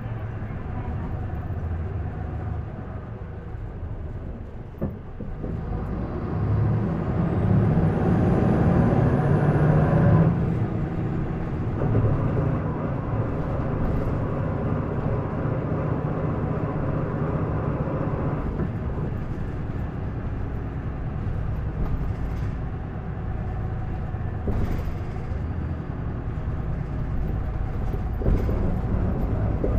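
Isuzu Erga city bus's diesel engine heard from inside, pulling hard at high revs: it builds from about six seconds in, drops sharply about ten seconds in, then pulls again. A thin high whine rises and holds during the hardest acceleration; this bus is known for an abnormal noise whose cause the owner does not know.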